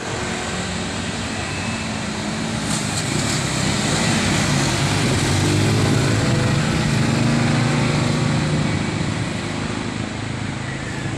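Road traffic: a steady roar of tyres and engines, with a passing motor vehicle's engine swelling and fading through the middle.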